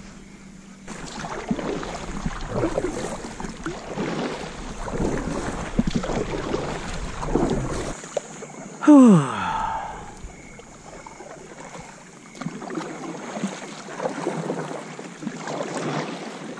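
Kayak paddle strokes dipping and splashing in the water, a stroke about every second. About nine seconds in, a short, loud sound falls steeply in pitch.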